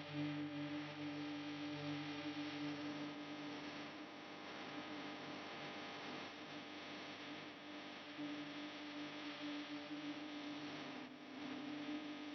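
Quiet background music: low, held droning notes over a steady hiss.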